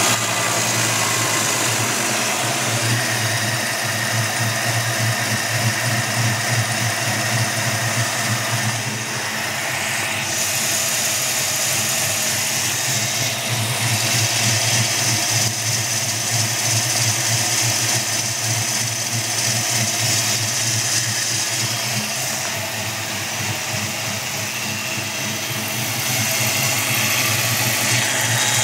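Ford Mustang's 5.0-litre (302) V8 idling steadily, heard up close in the engine bay with the serpentine belt and its accessories spinning, and a steady high whine over the idle. The owner hears a weird noise somewhere on the serpentine belt drive.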